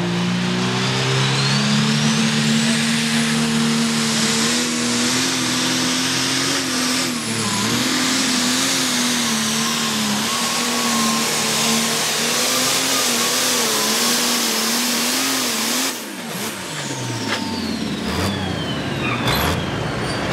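Pulling tractor's engine at full throttle under load on the sled, with a high whine that climbs over the first few seconds, then holds as the engine pitch wavers. About 16 s in the engine sound stops abruptly and the whine and engine wind down in falling pitch as a pulling tractor shuts down, followed by a few sharp knocks.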